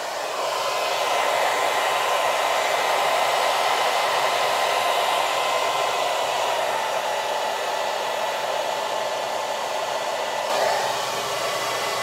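CHI Touch 2 touch-screen hair dryer running on its maximum setting: a steady rush of air with a faint motor whine, shifting slightly about ten and a half seconds in.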